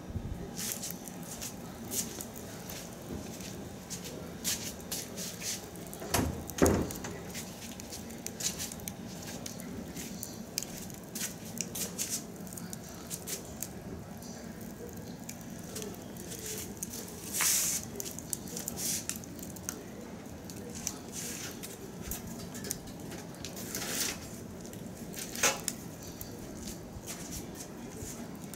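Wood fire burning in a metal drum grill, crackling with irregular sharp pops over a steady low hiss. A few louder pops stand out, the loudest about six seconds in.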